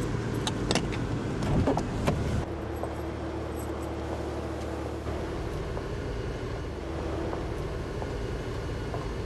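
Car interior noise with several sharp clicks and knocks in the first two seconds. It then gives way to a steady low hum of vehicle or traffic noise that runs on evenly.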